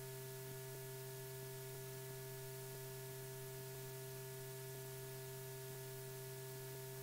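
Steady electrical hum, several fixed tones over a faint even hiss, with nothing else heard: the noise floor of an old film soundtrack.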